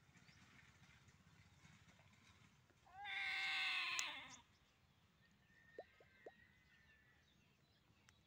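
A cat gives one long meow, about a second and a half, rising in pitch at the start.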